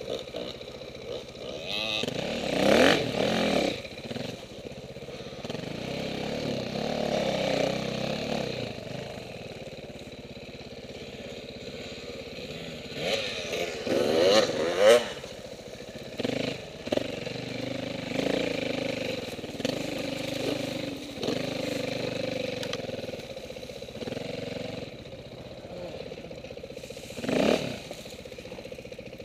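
Off-road dirt bikes revving through their gears as they pass one after another. The loudest passes come about three seconds in, around fourteen to fifteen seconds, and near the end, with other bikes running in the background in between.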